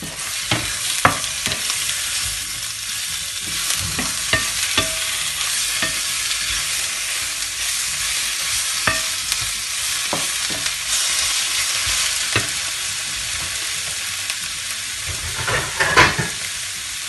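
Fish pieces sizzling in a frying pan with onion and garlic in coconut oil, steady hiss throughout. A wooden spatula scrapes and knocks against the pan as the fish is stirred, with a few sharper knocks near the end.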